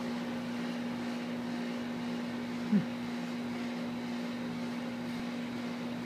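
A steady machine hum, with one short grunt sliding down in pitch a little before halfway, from the two dogs play-fighting.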